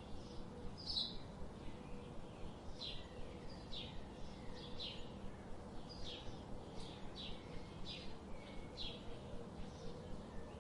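A songbird chirping: a steady series of short, high, down-slurred chirps, about one to two a second, over a faint steady hum and background noise.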